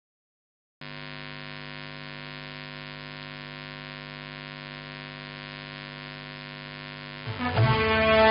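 Steady electrical mains hum, a buzz with a stack of even overtones, starting about a second in. Near the end, loud music with heavy drum-like beats comes in over it.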